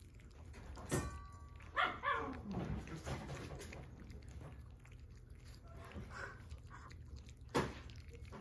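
A dog gives a quick cluster of short barks about two seconds in, with a fainter call near six seconds. Two sharp knocks, one about a second in and one near the end.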